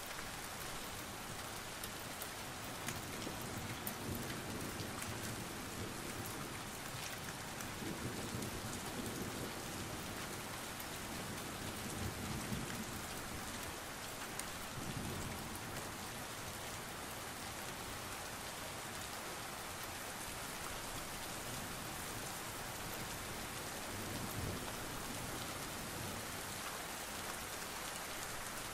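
Steady heavy rain falling and splashing on wet pavement, a dense, even hiss. A low rumble swells up briefly several times.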